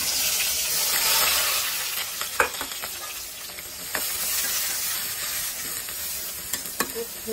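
Sliced onions and green chillies hitting hot oil in a metal karahi, sizzling loudly and then slowly easing off. A metal spatula scrapes and knocks against the pan several times as they are stirred.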